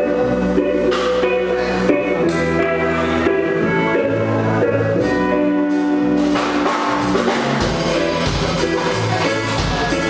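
Live band playing an instrumental reggae passage: a steady bass line and sustained pitched parts over drums and hand percussion. The percussion hits grow busier about six seconds in.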